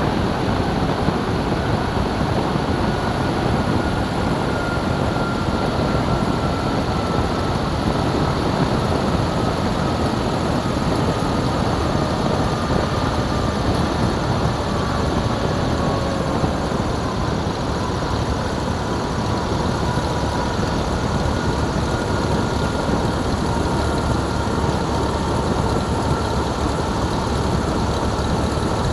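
Light airplane rolling fast down the runway: a steady rush of engine, propeller and wind noise, heard from an exterior-mounted camera. A faint whine underneath falls slowly in pitch.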